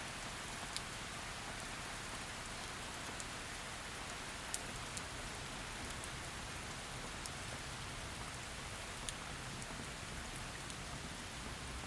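Heavy rain falling steadily as a dense, even hiss, with a few sharp drop ticks scattered through it, the loudest about four and a half seconds in.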